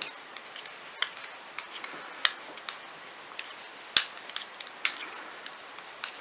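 Metal circular knitting needles clicking and tapping together at an irregular pace as stitches are knit, with one sharper click about four seconds in.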